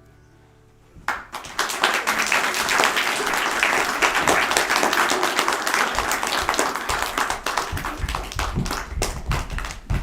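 The last strummed guitar chord of a song dies away, then about a second in an audience breaks into sustained applause, loud and dense, which carries on through the rest.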